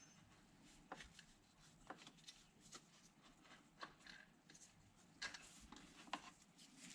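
Near silence with faint, scattered light clicks and taps of hand work on the engine's belt tensioner.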